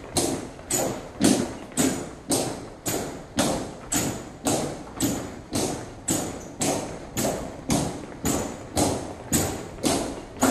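Honor guard marching in step, boot soles striking a hard floor in an even beat of about two steps a second, each step sharp and briefly echoing.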